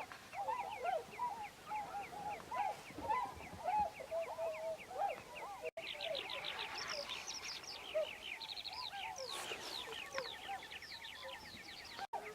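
Many waterbirds calling at once in a dense, overlapping chorus of short rising and falling calls, with rapid runs of high chirps over them. The sound cuts out for an instant twice.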